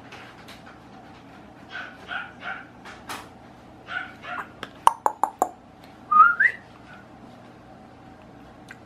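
Five-week-old puppy giving short high squeaks and whimpers while mouthing a hand, with a rising whine a little after six seconds in. A quick run of sharp clicks comes about five seconds in.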